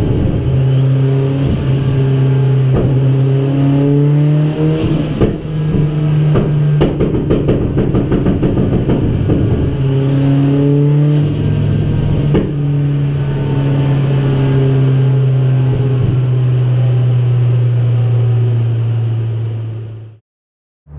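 Mitsubishi Evo 9's turbocharged four-cylinder engine running under load on a chassis dyno, held at steady speeds that step a few times, with a rapid patter of clicks in the middle. It cuts out suddenly just before the end.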